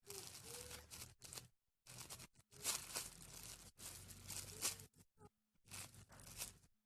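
A soft homemade squishy being squeezed close to the microphone, giving a series of crinkly, rustling bursts, about six in all, with short pauses between squeezes.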